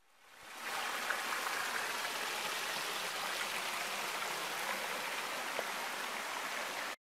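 Shallow forest stream running over stones in a small cascade: a steady rush of water. It fades in over the first second and cuts off abruptly just before the end.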